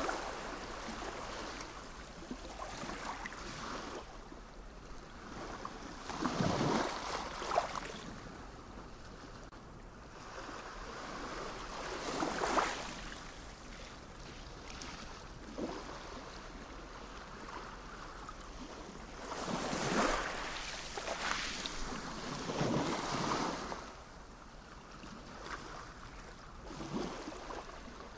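Sea waves breaking and washing on the shore: a steady rush that swells into a louder surge every few seconds and then ebbs away.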